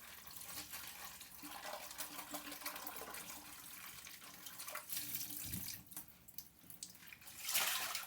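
Kitchen tap running into a sink, water splashing unevenly, with a louder rush of water near the end.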